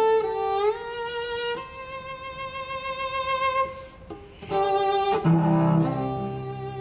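Bowed string instruments playing sustained notes that slide up into one another. There is a short break about four seconds in, then the playing resumes with lower notes added.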